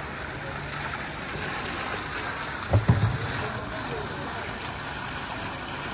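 Steady background hubbub with faint, indistinct voices, broken by two quick low thumps about three seconds in.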